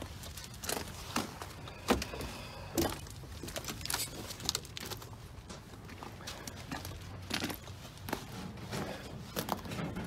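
Footsteps on gravel: a string of separate, irregular crunches and clicks.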